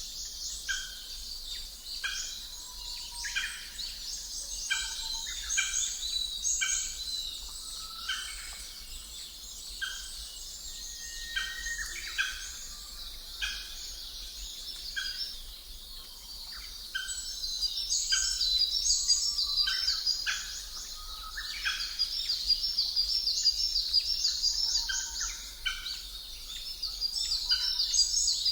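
A dense chorus of wild birds chirping and whistling, with rapid trills that get louder a little past halfway.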